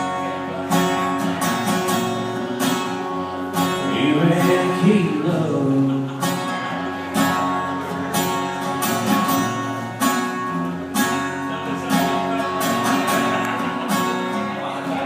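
Country song's instrumental passage: acoustic guitar strumming chords over steady band accompaniment, fading a little toward the end.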